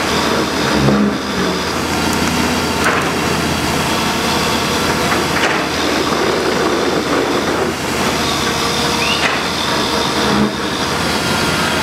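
Steady, loud engine noise with no clear rhythm, with no voices over it.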